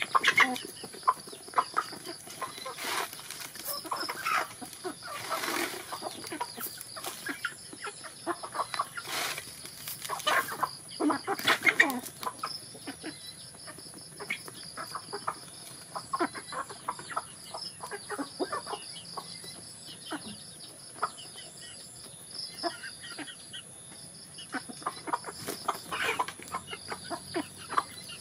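A flock of hens and roosters clucking in many short calls as they peck at scattered grain.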